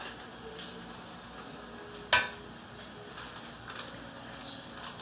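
A metal spoon strikes a metal cooking pot once, sharply, about two seconds in, with a brief ring, followed by a few faint clinks as cornstarch is spooned into the pot.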